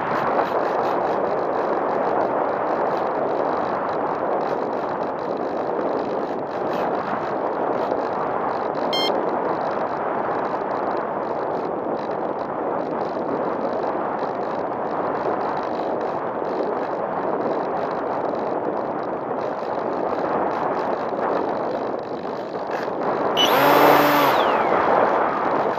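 Steady rush of wind over a wing-mounted camera on a Bixler v1.1 foam RC glider in flight. Near the end a louder humming tone with several pitches lasts about a second and a half, in keeping with a short burst from the plane's electric motor.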